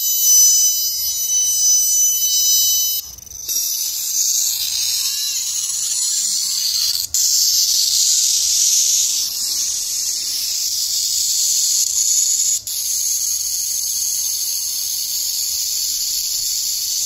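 Solar bird scare device sounding through its loudspeaker: a steady, high electronic alarm tone for about three seconds that cuts off, then a harsh, high hissing sound with a couple of brief breaks.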